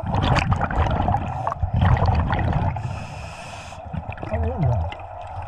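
Scuba diver breathing through a regulator underwater: a long exhale of rumbling, gurgling bubbles, then about a second of hissing inhale, and a short falling tone near the end.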